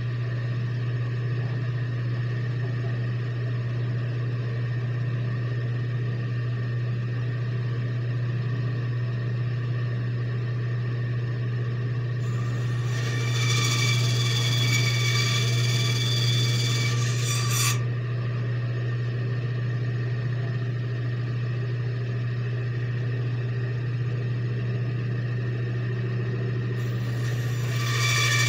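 Bandsaw running with a steady motor hum, its blade cutting into a wooden blank twice: a rasping cut of about five seconds around halfway through, and another starting near the end.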